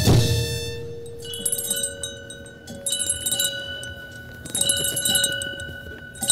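Small altar bells rung in four short shakes, about a second and a half apart, as at the consecration of a Mass. At the start, the last hit of the drum music rings out and dies away.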